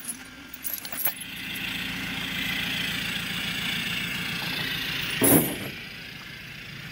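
A vehicle engine running at idle, steady, with one loud thump about five seconds in.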